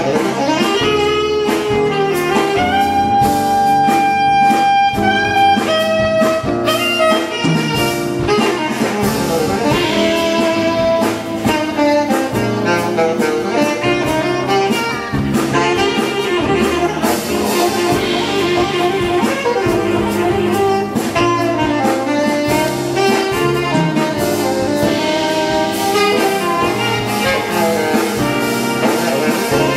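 Jazz big band playing live: a saxophone section and brass over upright bass and piano.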